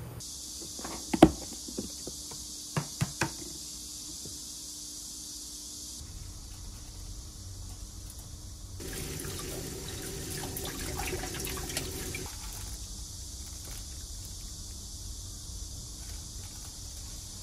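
Sour kimchi being rinsed and squeezed in a bowl of water: water splashing, sloshing and dripping, loudest for a few seconds in the middle. A few sharp knocks sound in the first few seconds, and a steady high hiss runs underneath.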